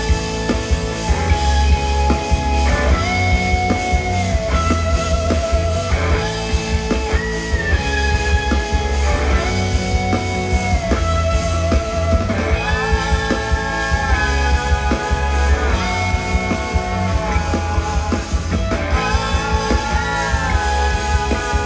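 Live band playing rock music, with a heavy bass and drum beat under held chords that change every second or two.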